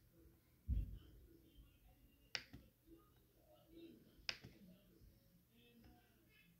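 Two sharp clicks about two seconds apart, from clicking on a laptop, with a soft low thump shortly before the first.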